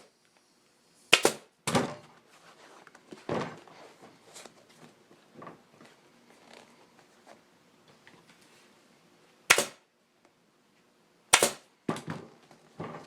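Staple gun firing staples through a motorcycle seat cover into the seat pan: about seven sharp shots, three early and four near the end with a long lull between, over faint handling and rustling of the cover.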